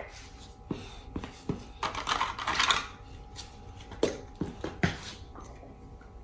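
Small plastic Lego bricks clicking and clattering as they are picked out of a basket and set down: a few separate clicks, with a denser rattle of bricks being rummaged about two seconds in.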